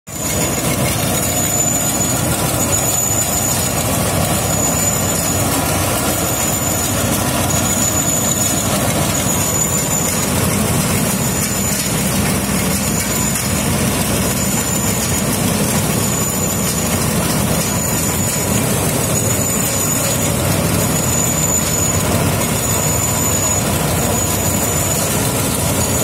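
Tracked rice combine harvester's diesel engine running steadily, loud and close. A short high chirp repeats evenly about every second and a quarter over the engine noise.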